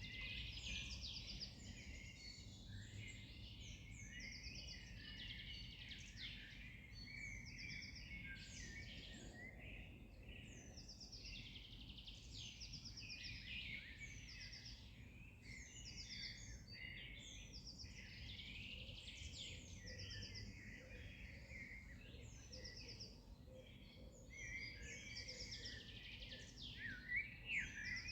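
Several songbirds singing at once, a dense chorus of overlapping chirps, trills and short whistled phrases, over a faint low background rumble.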